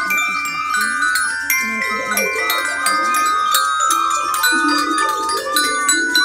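Music on a wooden xylophone struck with mallets: many short ringing notes in quick succession, with a high warbling tone repeating several times a second alongside.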